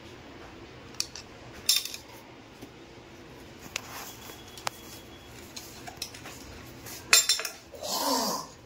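A thin metal rod scraping and clinking inside the body of an old Cera bathroom diverter as a jammed blockage is poked out of it: scattered light clinks, a louder clatter of several clicks about seven seconds in, and a short sound falling in pitch near the end.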